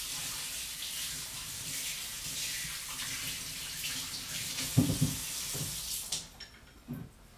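Kitchen faucet running water over a hand at the sink, a steady splashing hiss that is shut off suddenly about six seconds in. A short low thump sounds shortly before the water stops.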